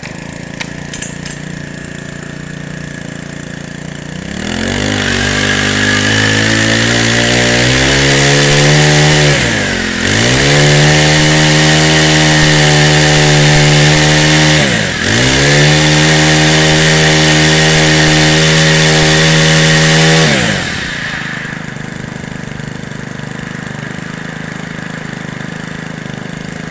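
Makita MM4 four-stroke brush cutter engine (MEM2651UHT, 26 cc) idling, then revved to high speed and held there for about sixteen seconds with two brief dips, then dropping back to idle.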